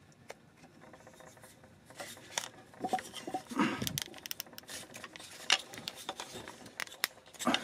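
Handling noises: scattered small clicks, taps and rubs as a carved wooden whirligig arm with a metal bearing is fitted to the figure and parts are picked up on the workbench.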